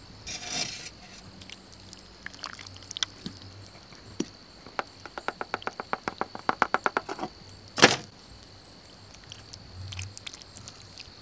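Sauce-covered grouse sliding out of a disposable aluminum foil pan, then a plastic fork scraping and tapping the foil pan clean. There is a quick run of light clicks in the middle and one sharper knock a little later.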